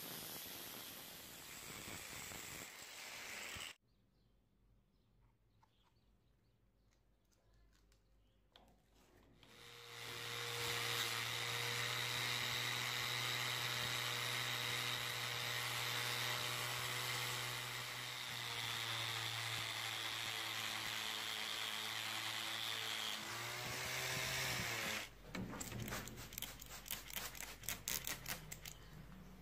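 Angle grinder grinding the steel axe head with a hissing, gritty rasp, then running steadily with a low hum and a high whine under load. Its pitch bends near the end as it stops, followed by a run of sharp clicks and knocks. The recording cuts to near silence for a few seconds about four seconds in.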